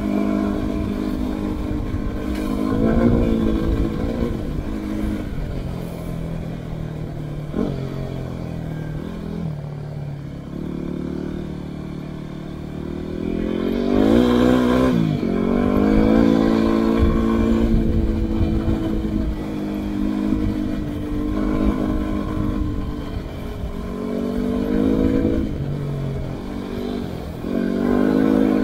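Yamaha WR250R's single-cylinder four-stroke engine running under changing throttle, its pitch rising and falling with speed, with a sharp rev-up about fourteen seconds in.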